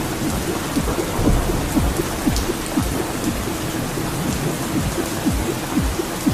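Recorded thunderstorm: steady rain with a low, continuous thunder rumble and many small drop impacts.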